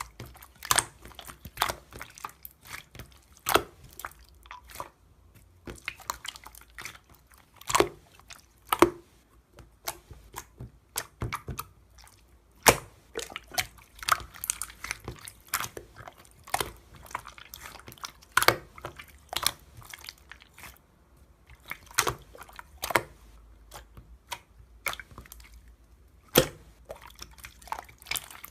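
Slime being squeezed and pressed by hand: irregular wet clicks, pops and crackles, some much louder than others.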